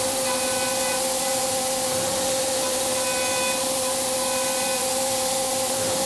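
CNC milling machine cutting billet aluminium: a steady high spindle whine over a constant hiss, with fainter higher tones that come and go as the cutter works.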